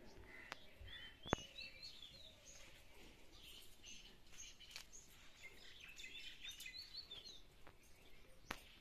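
Birds chirping faintly in short bursts of high chirps. A sharp click about a second in and another near the end.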